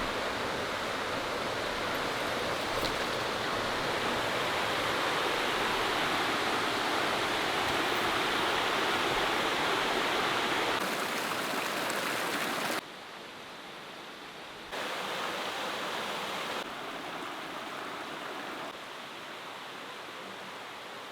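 Waterfall's rushing water, a steady, even noise that drops abruptly in level a few times in the second half.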